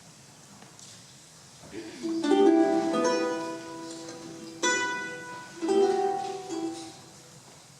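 Three strummed chords on a small charango-family string instrument, each left to ring and fade, with short pauses between them. They start about two seconds in.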